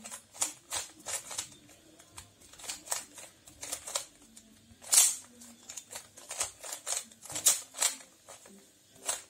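Plastic Rubik's cube being turned by hand, its layers clicking with each twist in quick, irregular clicks a few per second, the loudest about five seconds in.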